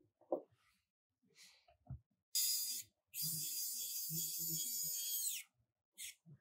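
Small electric screwdriver driving screws into a drone's top case. There are a few light clicks, then a short burst of the motor's whir, then a longer run of about two seconds that winds down in pitch as it stops.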